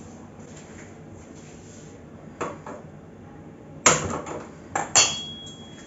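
Steel cooking pots and lids knocked and set down on a gas stove: two light knocks partway through, then a quick run of loud metal clanks near the end, the last leaving a brief ring.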